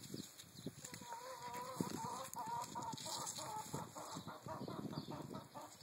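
Scuffing and rustling of a puppy rolling and pawing on gravel. A wavering pitched animal call runs for about two seconds from a second in.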